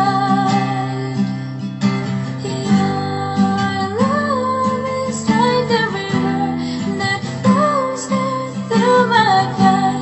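Background song: strummed acoustic guitar, with a female voice singing a melody that comes in about four seconds in.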